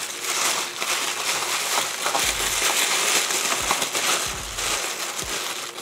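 Wrapping being torn and crumpled off a boxed perfume bottle: a steady rustling, crackling noise with a few soft low thumps from handling the package.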